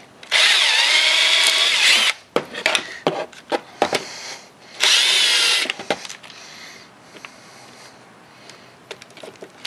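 Ryobi cordless drill driving screws into a plywood block. The motor whines in two runs, the first about two seconds long with its pitch dipping as it loads, the second shorter about five seconds in. Small knocks and taps come between and after.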